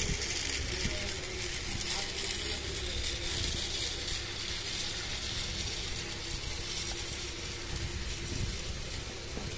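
Rail King battery-operated toy train, engine pulling a long string of cars, running steadily on a plastic track: the continuous mechanical running noise of its motor and wheels.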